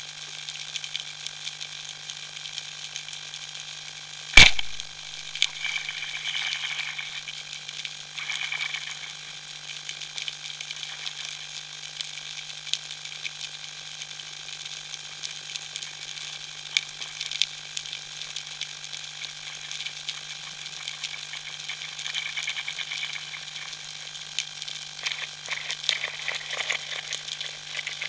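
Underwater ambience: a dense, steady crackle of many small clicks over a steady low hum, with one sharp, loud knock about four seconds in and thicker crackling near the end.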